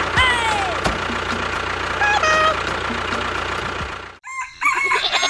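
A steady engine-like noise with rooster or chicken calls over it, cutting off abruptly about four seconds in; a higher pitched call follows near the end.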